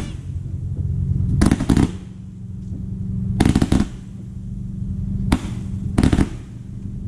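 Consumer firework cake firing its shots upward: sharp bangs in irregular groups of one to several, about five groups, over a steady low hum.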